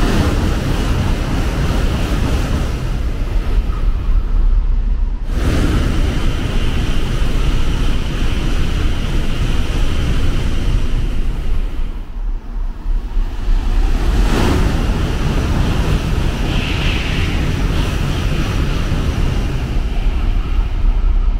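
Shinkansen bullet trains running along a station platform at speed: a loud, steady rush of air and wheels, with wind buffeting the microphone. The sound breaks off abruptly and starts again about five seconds in and again about twelve seconds in.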